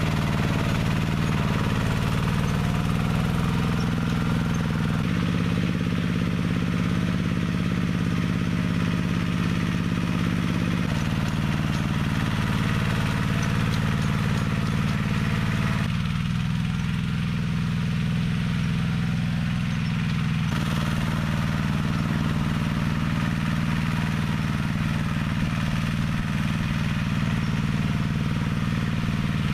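Engine of a homemade minitractor, built from a walk-behind tractor, running steadily under load as it pulls cultivator tines through wet soil. The engine note shifts abruptly a few times.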